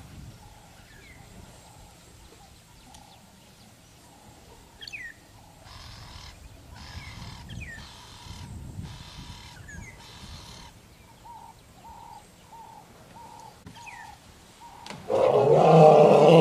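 Birds chirping and calling, with a run of short repeated notes in the second half. Near the end an African elephant gives a loud call lasting about a second and a half.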